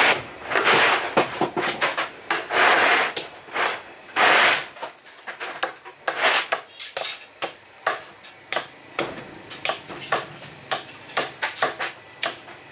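Steel knife scraping and slicing through a large trevally fillet on a wooden chopping block. Three long scraping strokes in the first few seconds, then quick sharp taps and clicks of the blade working on the block.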